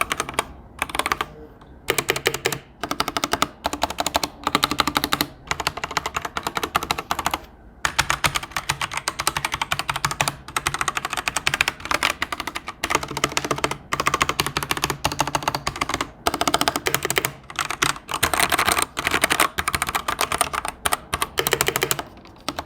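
Typing sound test on a plastic-cased Keychron mechanical keyboard with Gateron Red linear switches: fast runs of key clacks in bursts with brief pauses between them.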